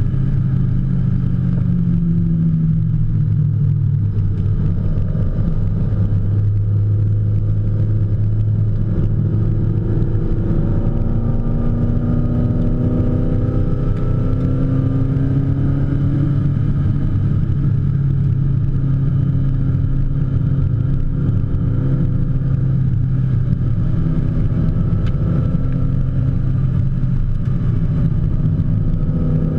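BMW M3 E30's four-cylinder engine heard from inside the cabin, running hard on a racing lap. Its pitch climbs and drops as the revs rise and fall through the gears.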